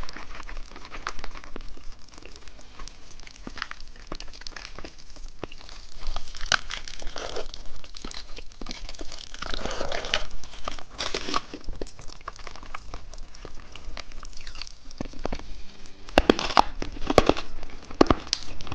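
Crinkling and crackling of candy and its plastic packaging being handled close to the microphone, with many small sharp clicks and rustles and a louder run of clicks near the end.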